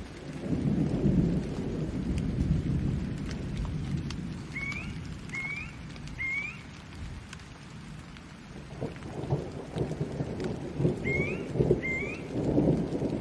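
Thunderstorm: rolling thunder rumbling continuously over steady rain. The rumble eases in the middle and builds again near the end. Short rising chirps cut through, three in quick succession a third of the way in and two more near the end.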